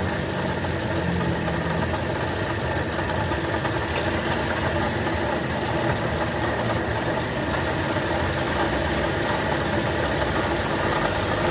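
Toyota Sienta's 2NR 1.5-litre four-cylinder engine running with a steady rough, snoring noise. The noise comes from a worn water pump.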